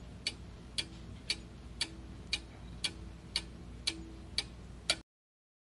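Clock-ticking sound effect for a quiz countdown timer: ten even ticks, about two a second, over a faint hum, cutting off suddenly about five seconds in.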